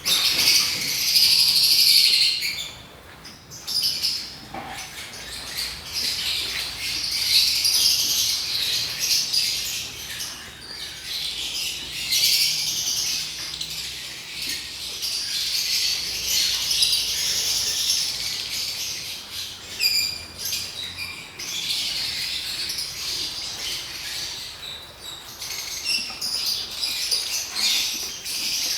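A colony of lovebirds chattering continuously in many overlapping high-pitched calls, swelling and dipping. There are a few short sharp clicks about two-thirds of the way through.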